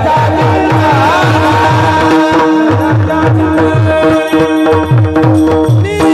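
Kirtan music without words: a hand drum plays a quick steady rhythm of bass strokes that slide down in pitch, about four a second. Under it a drone note is held and a melody line runs, and sharper strikes join from about halfway.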